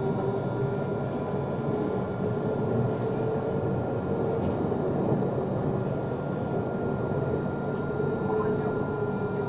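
Inside a moving Alstom Citadis tram: steady running noise of wheels on rails with a steady whine from the traction equipment.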